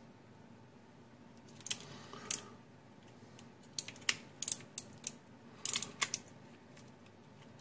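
Irregular sharp clicks and light knocks from handling the opened mechanical keyboard's metal plate and blue MX switch assembly, starting about a second and a half in, some coming in quick clusters.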